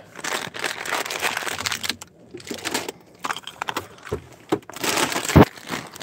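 Potato chip bag crinkling as a hand rummages in it, with one heavy thump about five and a half seconds in.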